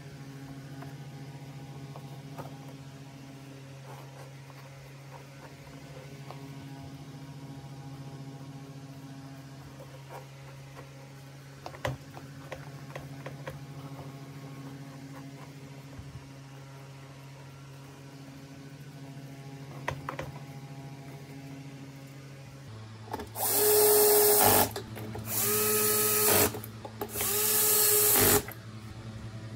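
Cordless drill-driver driving screws into a vacuum cleaner's plastic housing: three short runs of the motor near the end, about a second each, each rising as it comes up to speed. Before them, faint clicks of plastic parts being handled over a steady low hum.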